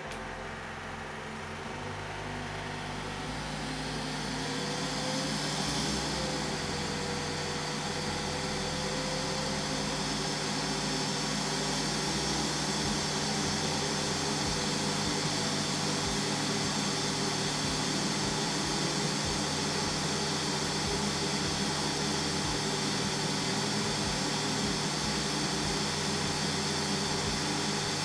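Neato D8 robot vacuum's suction motor spinning up over the first few seconds, then running steadily at its maximum suction setting.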